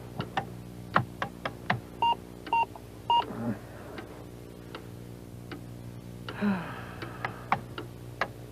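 Electronic computer sound effects: irregular sharp clicks, three short beeps about two to three seconds in, and a rising swoop a little after six seconds, over a steady hum.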